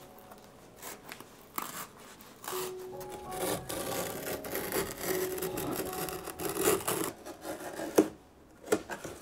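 Hand tool work on a shoe at the bench: a stretch of scraping and rubbing with a few sharp taps, over quiet background music.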